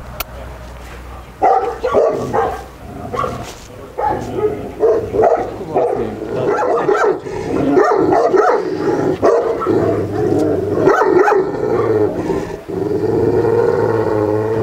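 Caucasian shepherd dog barking repeatedly, deep barks coming faster about halfway through, with a longer wavering call near the end.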